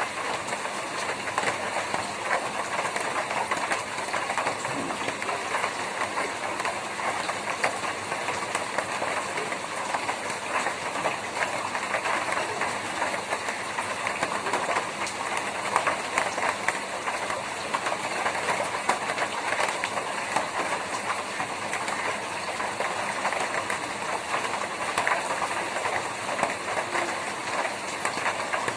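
Steady rain on a tin roof: a dense, even patter of drops on the metal sheets.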